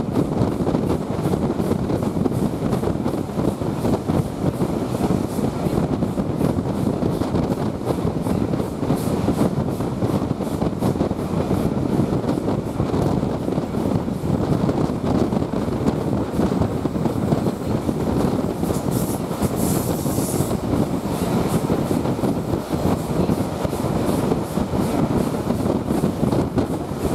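Running noise of a passenger train heard from an open coach window at speed: a loud, steady rumble of wheels on rails with rushing air. A brief high hiss comes about twenty seconds in.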